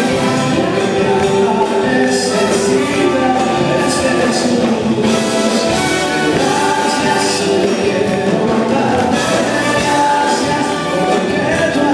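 Live Latin worship band music, filmed from the audience: the horn section plays an instrumental passage over the band's rhythm, with regular percussion strokes.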